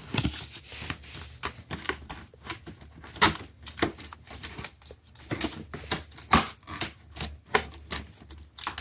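Packaging being opened and handled by hand: a quick, irregular run of clicks, taps and knocks with some rustling.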